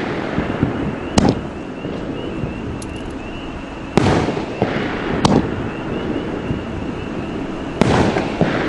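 A 500 g consumer firework cake (World Class Fireworks' 'Believe') firing gold-break shots. Four sharp bangs come about a second, four, five and eight seconds in, the loudest at about four and eight seconds, each trailing off in echo.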